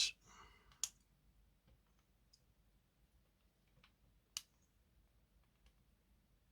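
Quiet workbench with a few sharp small clicks: one about a second in, a louder one near the middle, and fainter ticks between. They come from handling the circuit board and its parts while levelling the displays.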